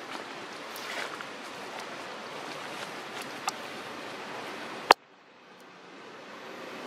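Steady outdoor background hiss with a few faint clicks. Near the end comes one sharp click, after which the hiss drops out and slowly fades back in.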